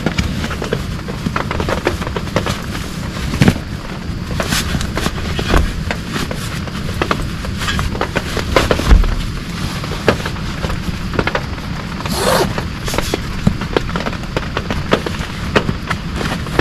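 Heavy rain pelting a tent, a steady drumming with many sharp, irregular pops of large drops striking the fabric.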